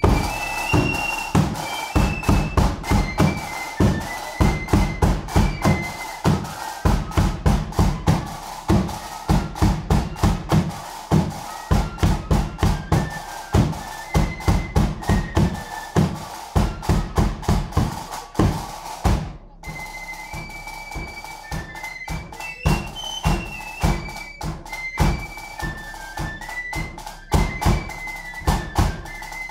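A marching flute band playing a tune, with a high flute melody over a big bass drum beating a steady rhythm. The music breaks off briefly about two-thirds of the way through, then the flutes carry on with lighter drumming.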